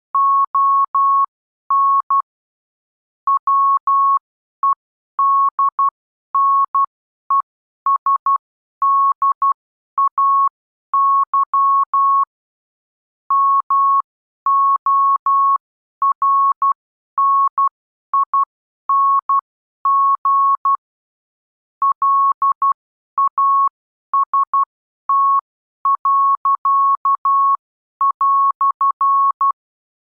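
Morse code practice tone: a single steady tone of about 1 kHz keyed on and off in dots and dashes, spelling out the words 'on Wednesday morning last', and stopping shortly before the end.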